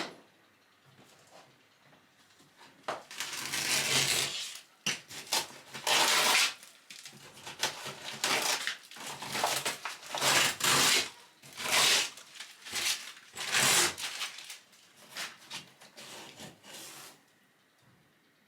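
Irregular bursts of scraping, rubbing and crunching from hand demolition work, a dozen or so rasping strokes with short pauses between. The strokes stop a little before the end.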